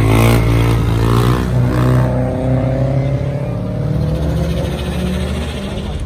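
A dirt bike's engine revving hard as it passes close on a wheelie, followed by a car engine accelerating up the road with a slowly gliding note.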